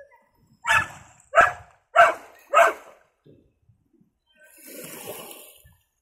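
A dog barking four times in quick succession, about a second in, then a soft rush of seawater washing over rocks near the end.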